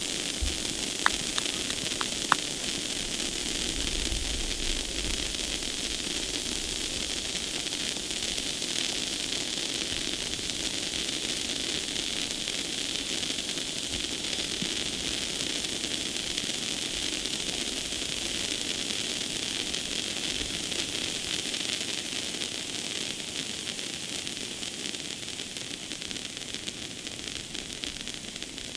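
Firework ground fountains burning with a steady hiss that eases off slightly over the last few seconds, with a couple of sharp pops about one and two seconds in.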